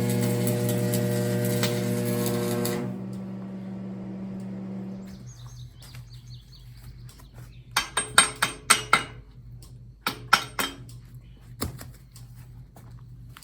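An engine running steadily, then shutting down and dying away within the first few seconds. Several seconds later comes a quick run of sharp metal clanks, with a few more single clanks after it.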